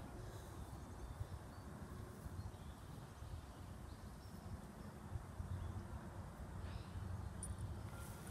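Quiet outdoor park ambience: a low, uneven rumble with a few faint, short bird chirps.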